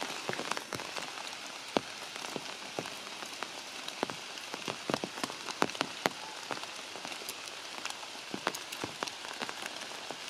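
Rain and water drops falling on leaves and branches in a forest canopy: a steady hiss with many irregular, sharp drop hits.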